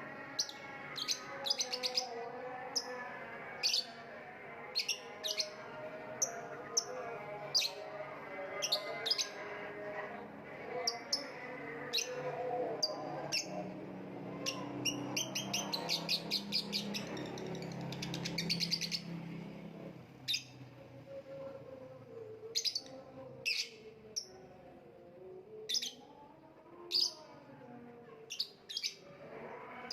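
Lovebird chirping: short, sharp, high chirps repeated at irregular intervals, with a fast chattering trill in the middle, over a softer, lower wavering background sound.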